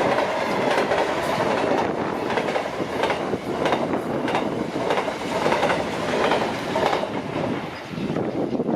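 Freight train rolling past, its wheels clattering irregularly over the rail joints with a steady rumble.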